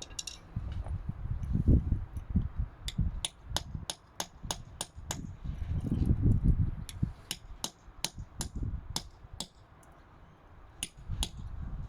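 Hammer driving a chisel against the worn steel ABS reluctor ring on a BMW driveshaft to cut it off: a run of sharp metallic taps, about two a second, with low thumps underneath, stopping shortly before the end.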